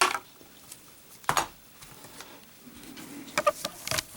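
Metal Zippo lighter cases clicking and knocking as they are handled: a sharp click at the start, a knock a little over a second in, and a quick cluster of clicks with a brief metallic ring near the end.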